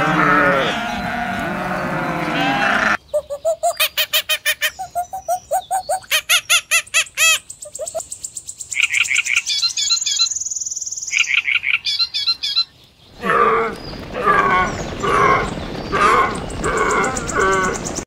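A flock of sheep bleating for the first three seconds, then a flameback woodpecker calling in rapid series of quickly repeated notes. Near the end comes a run of separate animal calls, about two a second.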